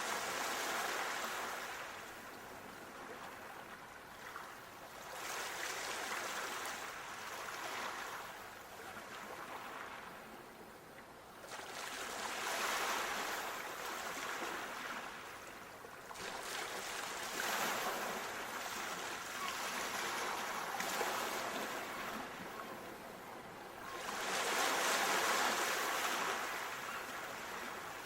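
Sea waves washing ashore, a rushing surge that swells and ebbs about every five to six seconds.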